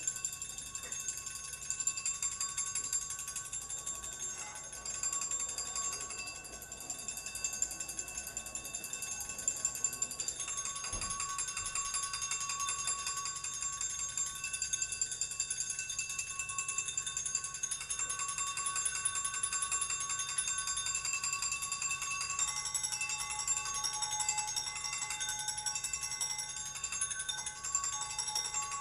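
Improvised live electronic music: several steady high tones held together over a dense, fast rattling texture, with new tones entering about two thirds of the way through.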